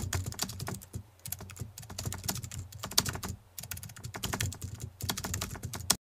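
Computer keyboard typing sound effect: rapid key clicks in quick runs with short pauses, as the text is typed out on screen. It cuts off suddenly at the end.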